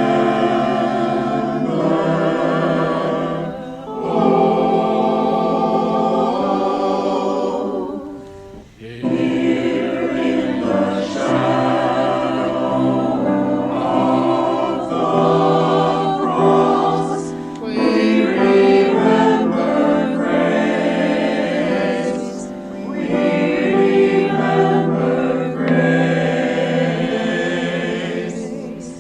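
A choir singing, in long phrases broken by brief pauses about four, eight and twenty-two seconds in.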